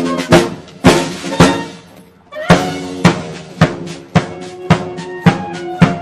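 Marching band playing: bass and snare drums strike a steady beat about twice a second under sustained brass chords. There is a brief break about two seconds in, then drums and brass come back in.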